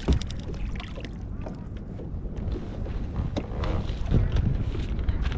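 Wind rumbling on the microphone and water lapping at a kayak, with scattered knocks and taps as a fish-measuring board is handled against the hull. The loudest is a sharp knock right at the start.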